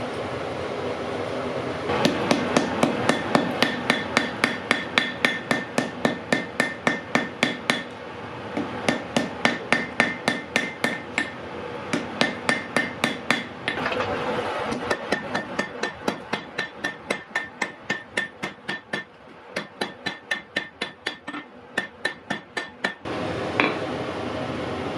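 Hammer blows on iron at an anvil, in a steady run of about three strikes a second, each with a ringing tone. There is a short break about halfway. A steady noise runs underneath before and after the hammering.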